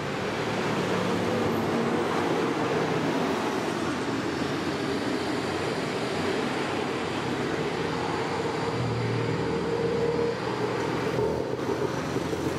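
Road traffic on a city street: cars and motor scooters passing, a steady mix of engine and tyre noise.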